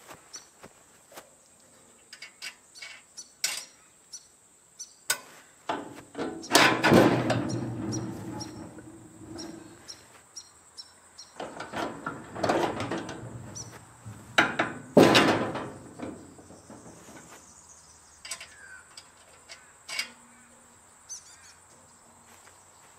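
Metal clicks, clunks and rattling from a home-made steel swing-away toolbox frame on a VW T3 van's rear, as it is unlatched and swung, with three louder rattling stretches. A steady high insect buzz runs underneath.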